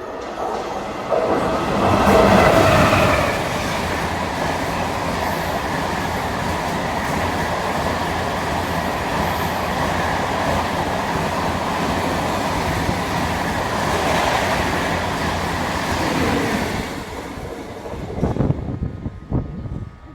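Indian express passenger train passing at speed, a long rush of wheels on rail with the clickety-clack of the coaches. It is loudest as the head of the train goes by about two seconds in, holds steady as the coaches run past, then fades with a few sharp clacks near the end.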